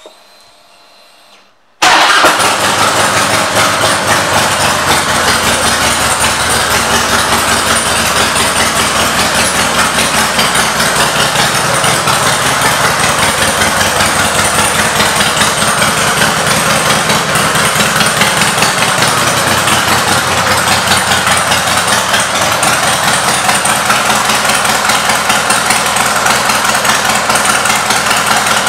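2003 Harley-Davidson Softail Deuce's Twin Cam 88B V-twin, fitted with Screaming Eagle exhaust pipes, starts abruptly about two seconds in and then idles steadily.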